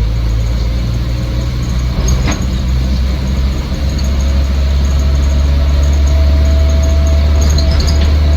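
Land Rover Series IIa's 2.25-litre four-cylinder petrol engine running steadily on the move, heard from inside the cab, with one sharp knock about two seconds in. It gets a little louder from about three seconds in.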